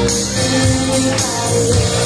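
Live band playing loud music, with drum kit, bass and guitars.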